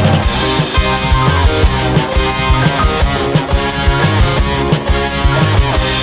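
Live dangdut music for a burok troupe, played loud over a sound system: a busy drum beat under guitar and other pitched instruments.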